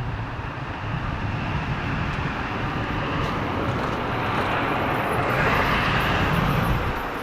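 A passing vehicle: a steady rushing noise that builds to its loudest about five to six seconds in, then eases off.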